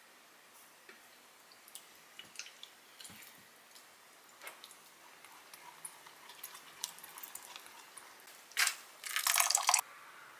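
A spoon stirring thick gochujang sauce in a glass measuring cup: small clicks and wet squishes, scattered at first. Near the end comes a louder noisy burst lasting about a second.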